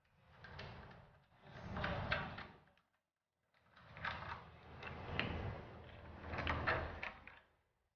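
Parts and tools being handled during a bicycle build: two stretches of sliding and rustling with sharp clicks, separated by a short silence about three seconds in.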